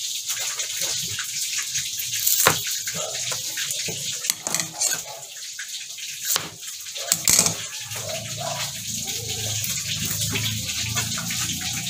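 Kitchen tap running into a steel sink with a steady hiss, while an onion is handled and halved; a few sharp knocks of a knife on the plastic cutting board.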